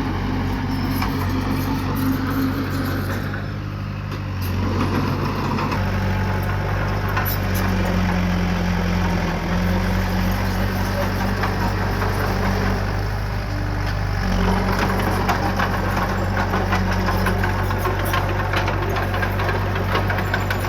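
Heavy-equipment diesel engine running steadily, its pitch shifting twice, with a light rattling in the second half.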